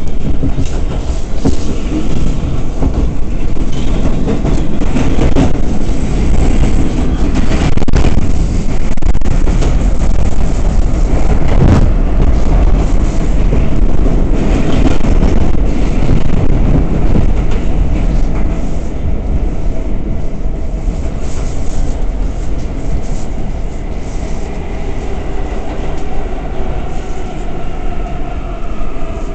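Inside an R179 subway car running at speed: a loud rumble of wheels on rail with frequent clicks over joints. In the last few seconds the traction motor whine falls in pitch and the rumble eases as the train slows.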